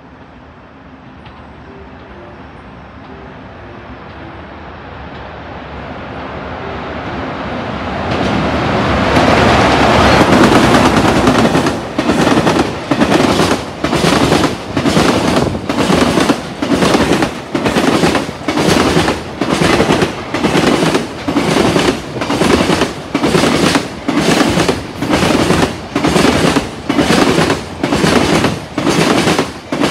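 Container freight train hauled by an EH500 electric locomotive approaching and passing through at speed. Its rumble swells to a peak about eight seconds in, then the wagons' wheels clatter over the rail joints in an even beat of a little more than one pulse a second.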